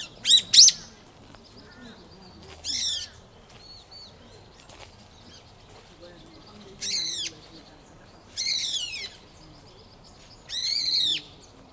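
A bird calling: two quick sharp calls at the start, then four longer harsh, arching calls a couple of seconds apart, with faint chirps between them.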